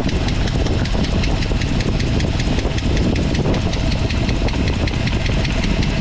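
AMC 360 V8 idling with its valve cover off, with a rapid, even lifter tap from the valvetrain. The owner suspects a bad lifter or worn bridge-style rockers.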